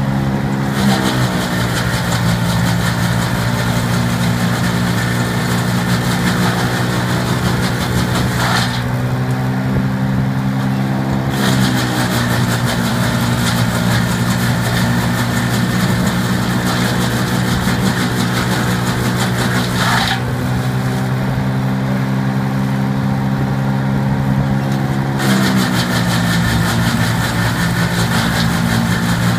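PTO-driven drum wood chipper and the tractor driving it, running steadily with a hissing, finely rattling top end. Twice the pitch dips and the high hiss drops out for a few seconds, then both pick back up.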